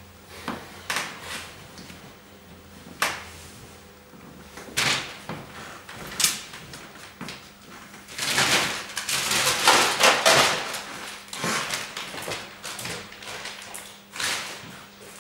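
Scattered knocks and clunks as a coat is hung up and things are handled. About eight seconds in comes the loudest part: a plastic bag rustling for a few seconds. A few more knocks follow.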